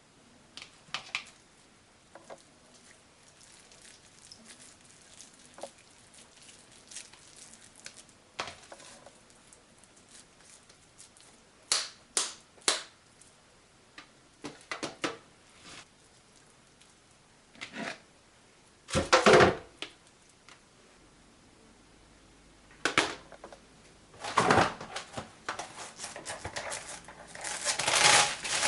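Kitchen utensils and dishes being handled: scattered clicks and knocks, a louder clatter about two-thirds of the way through, and quicker clinking near the end.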